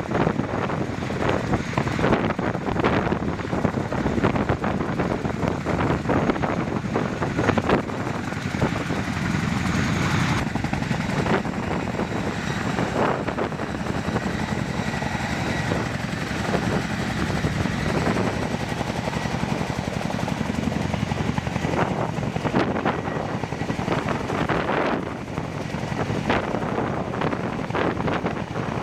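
CH-47 Chinook tandem-rotor helicopter hovering close by, its rotors beating and turbines whining steadily as it climbs to lift an underslung artillery piece off the ground.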